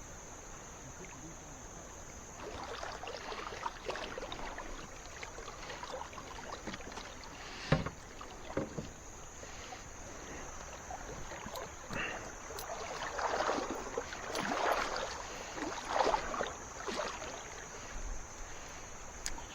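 Canoe on a river: water swishing and sloshing around the hull from paddling or moving about, with a sharp knock against the canoe about eight seconds in.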